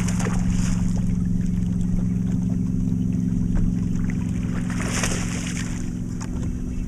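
Steady hum of an electric trolling motor, with a splash about five seconds in as a hooked bass thrashes at the surface close to the boat.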